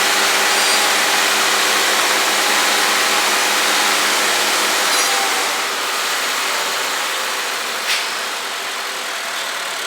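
Toyota GR86's 2.4-litre flat-four engine idling on a chassis dyno under a steady, loud rush of air noise, easing off slightly partway through. A single sharp click comes near the end.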